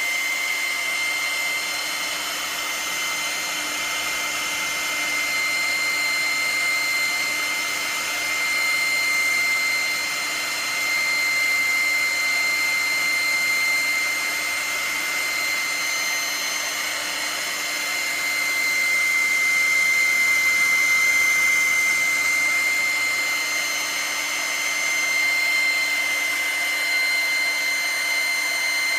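Pet hair dryer running steadily, blowing air with a constant high whine, its loudness swelling and easing a little.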